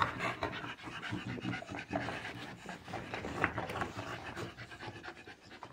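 American bully dogs panting while they play.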